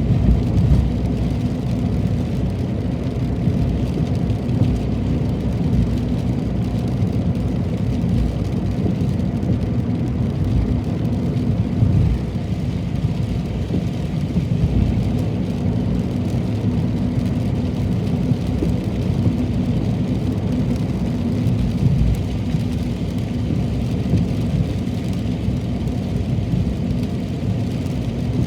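Heavy rain falling, a steady low, dense rumble without much high hiss.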